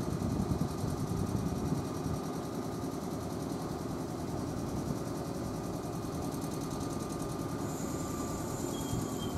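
Steady mechanical hum from a JR West Kumoha 113/112 2000-series electric train at the station platform.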